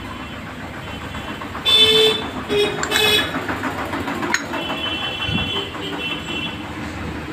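A vehicle horn honks twice in quick succession about two seconds in, then a fainter high-pitched tone sounds for about a second and a half past the middle; a single sharp metal click comes between them.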